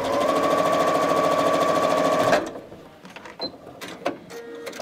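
Janome computerized sewing machine stitching a seam at a steady, fast speed, then stopping abruptly about two and a half seconds in. A few light clicks follow as the work is handled at the machine.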